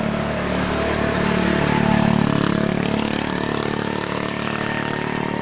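Motor vehicle engine running steadily, loudest about two seconds in, with a whine that rises in pitch through the rest.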